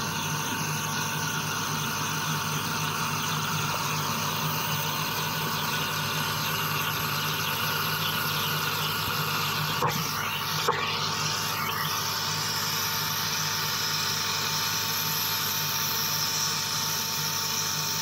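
Wire EDM machine cutting in its water-filled work tank, heard from under the water: a steady hiss of flushing water and spark erosion over a constant hum and a thin high tone. Two small clicks about ten seconds in.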